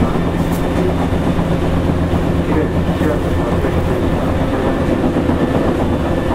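Tokyu 8500 series electric train running between stations, heard from inside a motor car: a steady hum from the traction motors under the floor over continuous wheel and rail noise.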